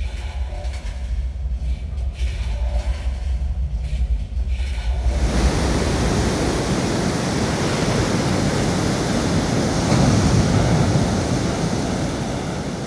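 A low rumble, then about five seconds in, loud heavy surf breaking on the shore comes in and keeps going.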